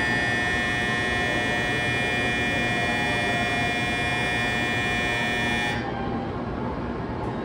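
Shinkansen platform departure bell giving a steady, high electronic ring that cuts off suddenly about six seconds in: the signal that the train is about to close its doors and leave. A low station rumble continues underneath.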